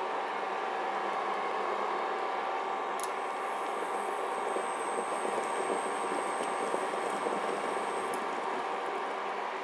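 Water boiling in a lidded stainless steel pot on an induction cooker, over the steady whir of the cooker's cooling fan. About three seconds in there is a click and a faint high whine starts; it stops with another click about five seconds later.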